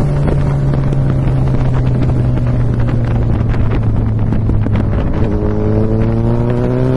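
Suzuki Hayabusa's inline-four engine under way, its note sagging slightly with a scatter of crackles and pops from the exhaust on a closed throttle, then rising again about five seconds in as the throttle opens. Wind noise on the microphone.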